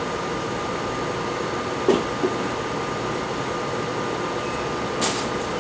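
Steady machine hum and hiss with a faint high steady tone. Two short knocks come about two seconds in, and a light click comes near the end.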